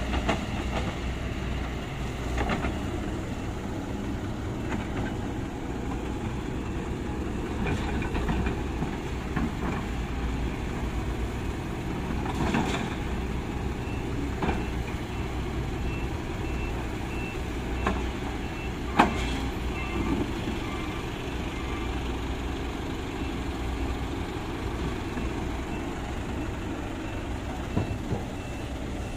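Kobelco hydraulic excavator's diesel engine running steadily under load as it digs and swings, with scattered clanks and knocks from the bucket and dumped soil, the loudest a sharp knock about two-thirds of the way through. From about halfway on, a truck's reversing alarm beeps repeatedly.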